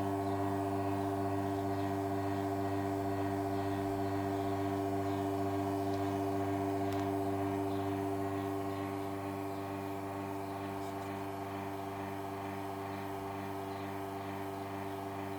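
Expobar Zircon espresso machine's pump running with a steady buzzing hum while pulling a shot; it eases a little about two-thirds of the way through and cuts off sharply at the end.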